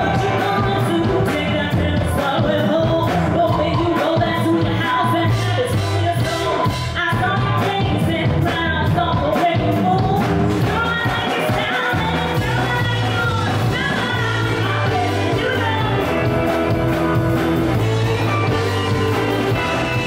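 Live funk jam band playing: a woman sings lead over electric guitar, bass guitar, drum kit and keyboards, at a steady loud level.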